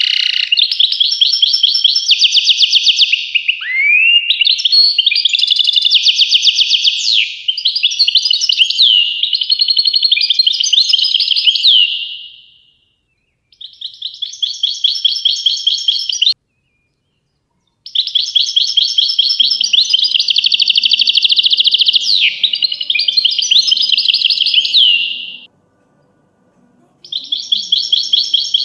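European goldfinch singing: long phrases of fast twittering and liquid trills with quick rising notes, in several bursts broken by short pauses.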